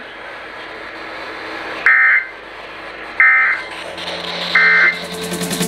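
Three short bursts of Emergency Alert System end-of-message data tones, warbling digital code, come from a radio speaker over a steady hiss of static. They mark the close of the broadcast alert.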